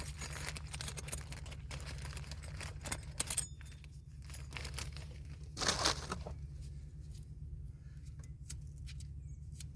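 Packaging crinkling and tearing as new brake pads are taken out, with a few sharp metal clicks about three seconds in and a short rustle near the middle, then only faint small clicks. A steady low hum runs underneath.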